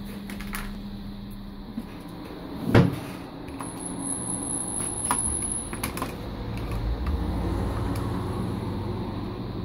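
Handling noise as headphones and a small screwdriver are worked on a wooden table: scattered clicks and taps, with one loud knock about three seconds in.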